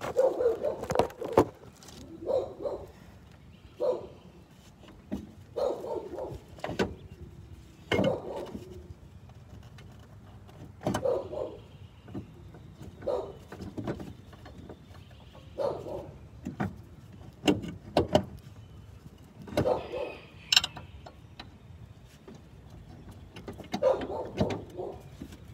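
Hand work on a Nissan Sentra's front strut and suspension: irregular metal clanks and knocks every second or two as parts are worked loose.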